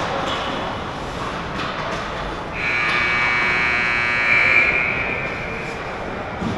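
Rink buzzer sounding once in one steady, buzzy tone for about two and a half seconds, starting suddenly a little over two seconds in, over the general noise of the rink.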